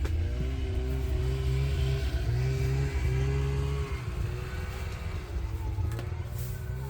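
Snowmobile engine running steadily, its pitch wavering slightly, a little quieter after about four seconds.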